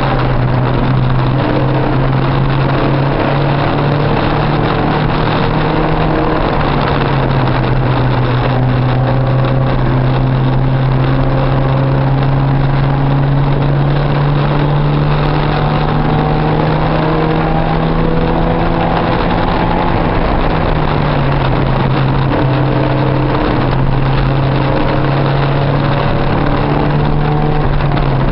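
Porsche 944 race car's 2.5-litre four-cylinder engine running hard, heard from inside the cabin. Its pitch steps down and climbs back up a few times, most plainly about three quarters of the way in.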